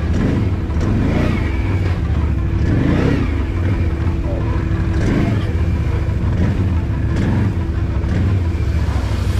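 Quad bike (ATV) engine running at low speed, its revs swelling up and falling back several times as it crawls over rough dirt mounds.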